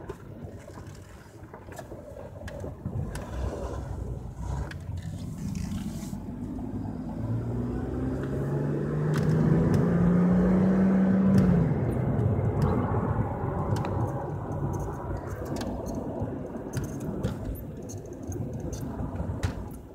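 Mercedes-Benz C280 heard from inside the cabin while driving, with engine and road noise. About a third of the way in the engine note rises steadily for several seconds as the car accelerates, then falls away near the middle. Scattered light clicks are heard throughout.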